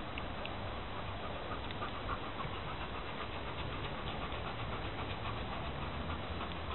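Giant schnauzer panting in quick, even breaths, faint over a steady hiss.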